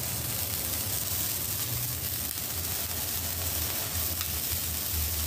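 Sky Bacon Morning Glory sparkler burning with a steady, even hiss of spraying sparks.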